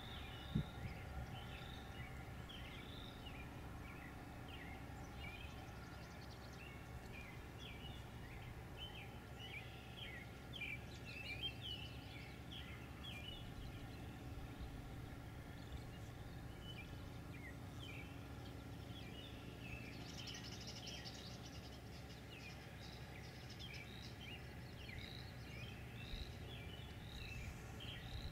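Faint birdsong: many short chirps and calls from several birds, over a low steady background rumble, with a single sharp knock about half a second in.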